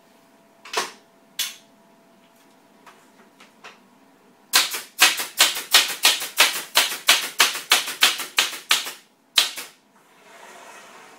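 Staple gun firing a fast run of staples into a canvas stretcher frame: two single sharp shots, then about twenty in quick succession over some four seconds, two more after a short pause, and a brief soft hiss near the end.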